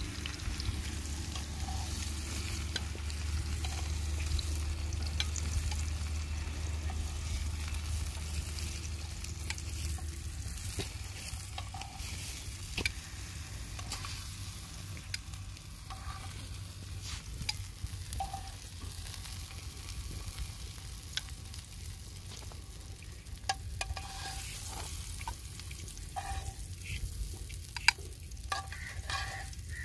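Oil sizzling in a frying pan with tomato slices frying in it, with scattered clicks and scrapes of a utensil against the pan and one sharper click near the end. A low rumble underlies the first third.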